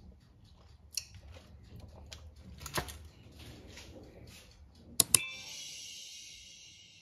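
Soft tapping and handling sounds, then two sharp clinks about five seconds in, each followed by a high ringing that slowly fades over about two seconds, as of a hard object struck.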